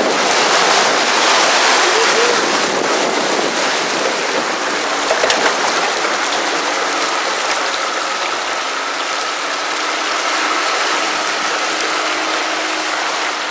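Water rushing and splashing as a Land Rover Discovery 2 pushes a bow wave through a flooded creek crossing: a loud, steady hiss of spray.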